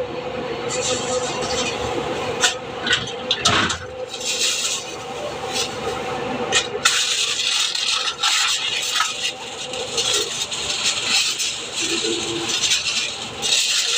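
Kitchen handling noises: scattered clicks and knocks, then from about halfway on a dense rustling and scraping with many small crackles.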